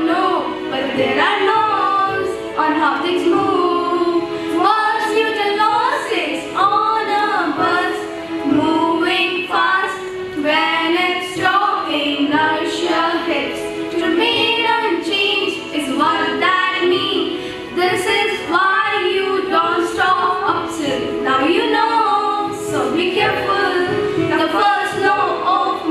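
A small group of children singing an English song together at one microphone.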